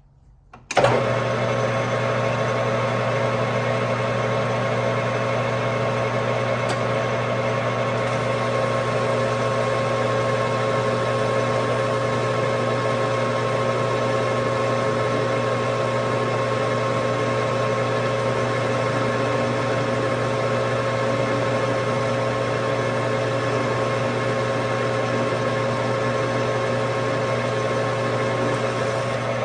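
Metal lathe switched on about a second in, its motor starting with a brief jolt and then running at a steady speed with an even hum while turning a steel bushing.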